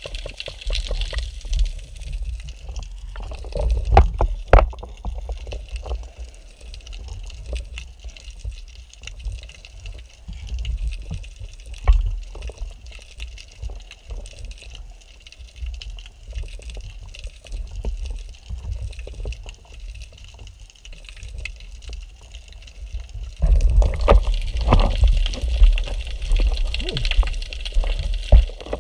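Sea water sloshing and bubbling around a camera mounted on a speargun at the surface, with a steady low rumble and scattered sharp knocks. About 23 seconds in the water noise and knocking grow louder as the gun and spear shaft are handled.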